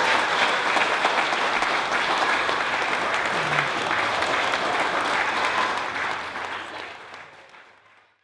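A roomful of people applauding, fading away over the last two seconds.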